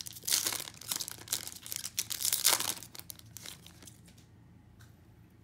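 A 2021 Topps Chrome baseball card pack's wrapper being torn open and crinkled by hand, a rapid run of crackling rustles that dies away after about three and a half seconds.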